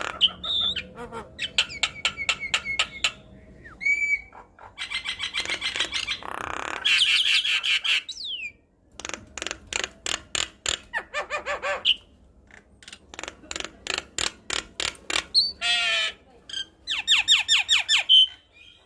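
Javan myna (jalak kebo) singing in full voice: bursts of rapidly repeated rattling notes mixed with harsh squawks and short whistles, broken by brief pauses.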